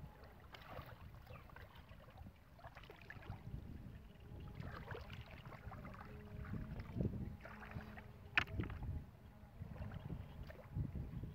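Hands splashing and groping in shallow muddy ditch water in short, scattered bouts, with grass rustling. A single sharp click about eight and a half seconds in.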